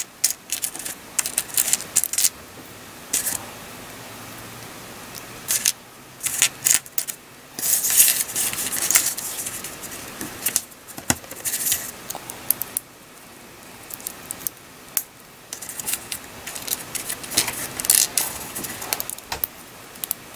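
Small plastic building bricks clicking and clattering against each other and the table as they are sorted and snapped together by hand, in irregular bursts of clicks with a quieter pause about three seconds in.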